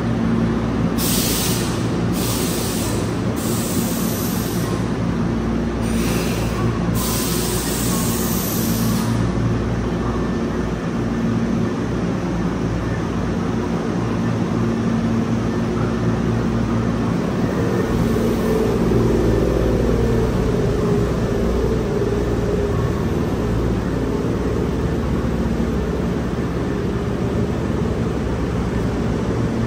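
Hankyu electric train running, a steady rumble and hum, with several short bursts of hiss in the first ten seconds.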